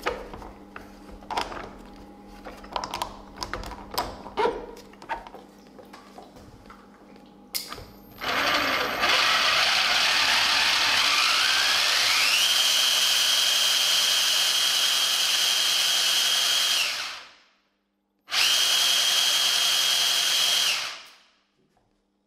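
Light knocks and clicks for about eight seconds, then a 775 DC motor driving a 3D-printed TPU flexible-impeller water pump starts up: a whine rises in pitch over about two seconds and then holds steady, cuts off after about nine seconds, and runs once more for about three seconds. The pump, with its redesigned 11-vane impeller, comes close to priming itself.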